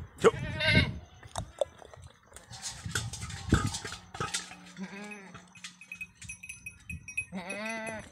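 Goats bleating: a short wavering bleat about five seconds in and a longer, quavering bleat near the end, with scattered short knocks between them.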